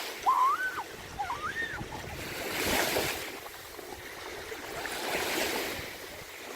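Lake waves washing in on a windy shore, swelling up and falling away twice, about two and a half seconds apart. In the first two seconds, short high shouts from people playing in the water carry over the waves.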